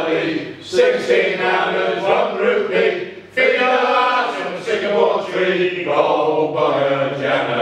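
A group of men singing together unaccompanied in chorus, a loud sing-along with brief pauses between sung lines.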